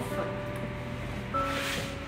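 Background music with slow, held notes, and a brief rustle of handled material near the end.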